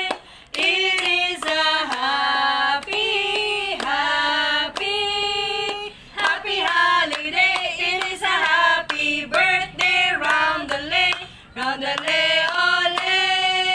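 Three women singing a birthday song together, clapping their hands along.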